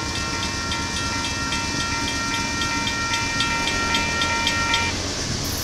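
Mechanical grade-crossing bell, a second-generation WCH bell on an old WABCO signal, ringing with rapid strokes about five times a second; it stops a little before the end. Under it is the steady low rumble of freight cars rolling past on the rails.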